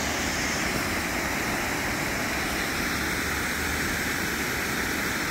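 Water pouring over a river weir: a steady, even rush of falling water.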